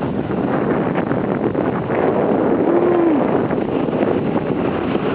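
Wind buffeting the microphone of a handheld camera while a snowboard slides and scrapes over the snow, a steady rushing noise with a brief low tone about three seconds in.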